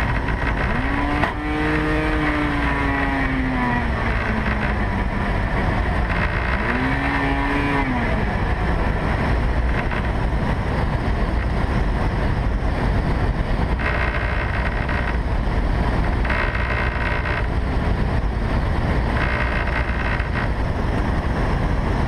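Steady rush of wind and airflow in the cockpit of a RANS S-10 Sakota single-engine light plane in flight after losing its propeller. The propellerless engine revs up twice, about a second in and about six seconds in, each time rising quickly and winding slowly back down.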